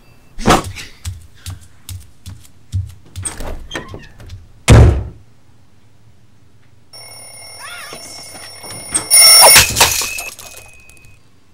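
Cartoon sound effects: a run of knocks and thumps, the heaviest about five seconds in. A ringing with several steady tones then starts and is cut across by a loud crash near the end.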